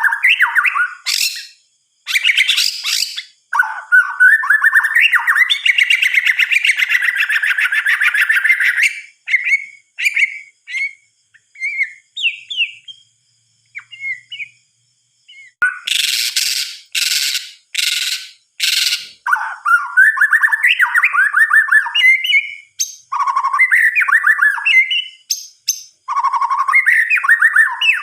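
White-rumped shama (murai batu) singing varied, rich whistled phrases in bursts with short pauses. A run of four harsh, rasping notes comes about two-thirds of the way through.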